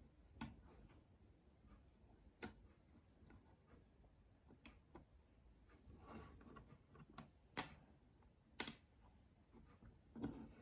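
Small 5mm magnetic balls clicking as they snap onto one another: a few sharp, faint clicks at irregular intervals, with lighter ticks between them.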